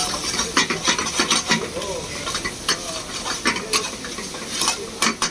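Prawns frying and sizzling in a pan while a spatula stirs them, scraping against the pan in a dozen or so irregular strokes.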